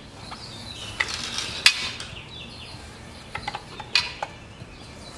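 Light metallic clinks and knocks of a tool and small parts being handled against sheet metal, a few separate strikes with the sharpest about a second and a half in and another near four seconds.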